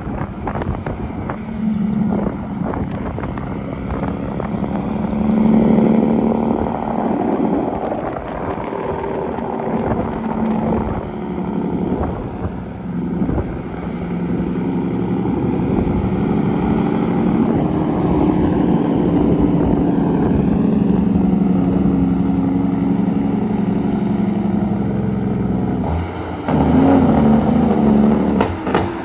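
Diesel dump truck labouring up a steep grade, its engine note shifting a few times and growing louder as it comes close near the end.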